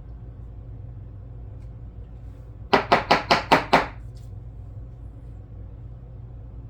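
Six quick sharp knocks, about five a second, from a super glue (CA) bottle being rapped on the bench to bring the thickened, gel-like glue down to the nozzle.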